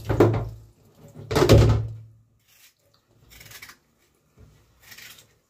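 Dull thunks of things being handled at a stainless-steel kitchen sink: one at the start and a louder one a little over a second in, then a few faint knocks.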